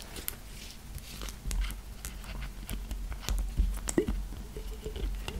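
Close-up clicks and taps of a small amber glass bottle and its black cap being handled and fingered, with soft low thuds of hands near the microphone and a brief squeaky tone about four seconds in.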